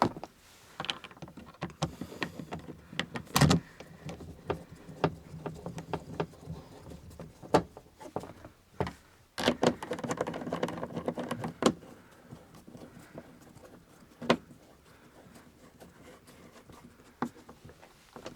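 Plastic door-trim parts being fitted by hand on a Lada Kalina door: a series of sharp plastic clicks and knocks as a trim piece is worked and snapped into place, with a stretch of scraping and rattling handling in the middle.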